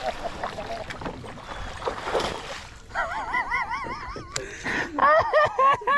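A smallmouth bass thrashing and splashing at the side of a kayak as it is landed, with knocks against the boat. In the second half come high, wavering vocal cries, the loudest near the end.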